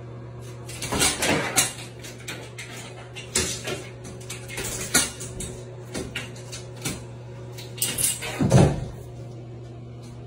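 Shower curtain rod and its rings rattling and knocking as a cat hangs from it and climbs along it, in irregular clatters with a louder knock about eight and a half seconds in. A steady low hum runs underneath.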